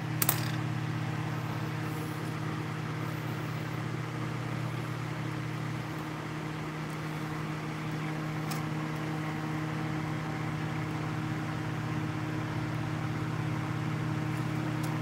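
Steady electric hum of a small fan motor, a few low tones with a light hiss over them, with a couple of faint clicks from handling small parts.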